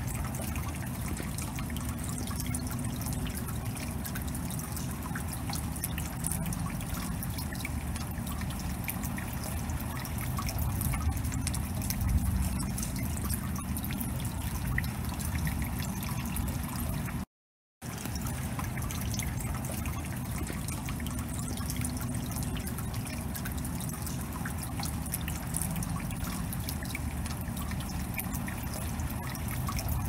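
Rainwater dripping and trickling: a steady dense patter of drops over running water. It cuts out completely for about half a second about seventeen seconds in, then carries on the same.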